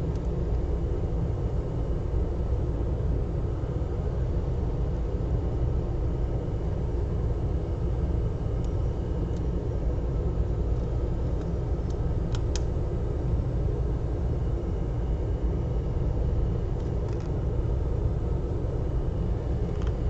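Steady low rumbling background noise, with a few faint light clicks, two of them close together a little past the middle.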